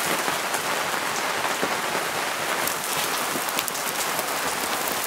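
Lamb skewers, konjac slices and rice cakes sizzling on a wire-mesh grill over glowing charcoal: a steady hiss with scattered small crackles.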